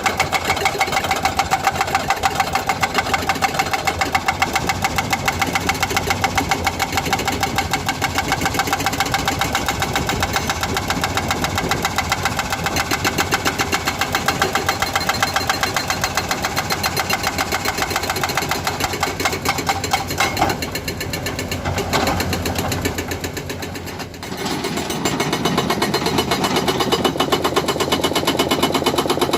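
Excavator-mounted hydraulic breaker hammering rock in rapid, steady blows, with the excavator engine running under it. The hammering eases for a few seconds about twenty seconds in, then picks up again.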